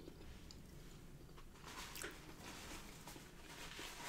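A person chewing food quietly, with a few faint soft mouth clicks.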